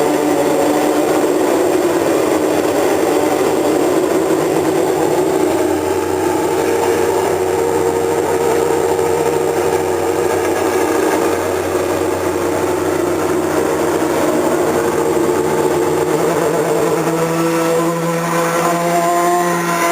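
Racing car engine running at steady high revs, then revving higher near the end.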